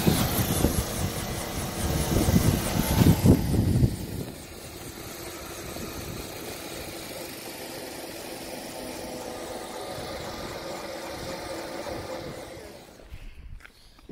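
Helicopter engine and rotor running, heard from inside the cabin: loud with heavy low rumble at first, dropping suddenly about four seconds in to a quieter, steadier drone, which fades near the end.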